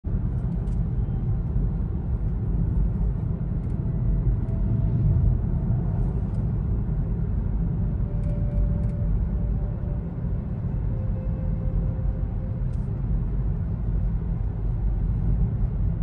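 Steady low rumble of tyre and engine noise inside a moving car's cabin at highway speed.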